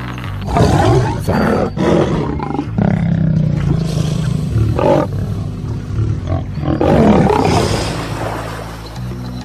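Lion growling and roaring in several loud rough bursts, the loudest about seven seconds in, over low steady background music.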